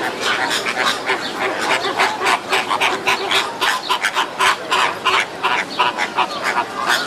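A flock of flamingos honking: a dense run of short calls, several a second, overlapping one another.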